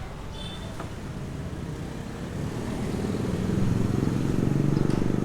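An engine running, growing louder from about halfway through.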